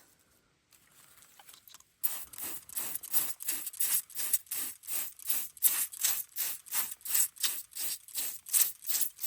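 Brisk back-and-forth rubbing strokes, about three a second, starting about two seconds in, as dirt is scrubbed off a freshly dug solid bronze buckle.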